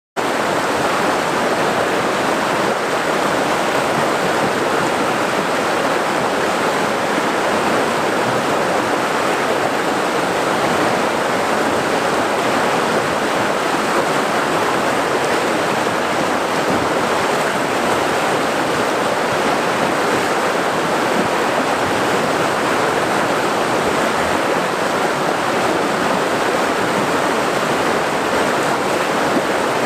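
Flowing water rushing steadily, an unbroken even rush with no changes or separate events.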